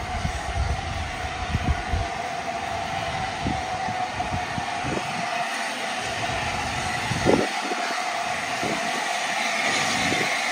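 LNER Class A4 Pacific steam locomotive rolling slowly into the platform. It gives a steady hiss with a constant mid-pitched ring over it, a few light knocks, and one louder clank about seven seconds in.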